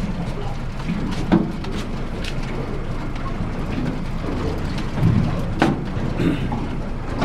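A fishing boat's engine running steadily, with wind and water noise over it and a few sharp knocks.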